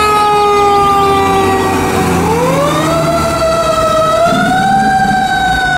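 Fire truck siren wailing: its pitch slides slowly down, then rises again about two seconds in and holds high.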